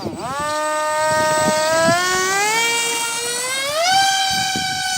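Model airplane's motor running up on the throttle. Its whine dips, climbs slowly, then jumps higher about four seconds in and holds there.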